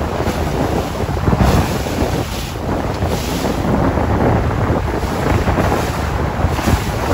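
Strong wind buffeting the microphone in gusts, over the wash and splash of choppy open sea.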